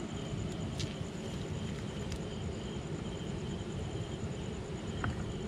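Night insects, crickets, calling in a steady pulsing trill over a constant low rumble, with a couple of brief clicks about a second in and near the end.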